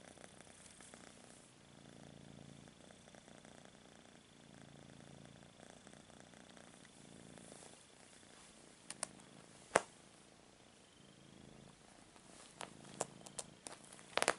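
Kitten purring, the purr swelling and fading in slow cycles every second or two. Several sharp clicks break in, the loudest about ten seconds in and a quick run of them near the end.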